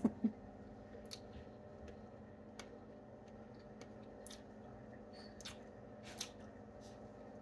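Faint crunching and clicking of people chewing bites of a still partly frozen homemade oat-and-coconut cookie, in short scattered crackles over a steady low hum.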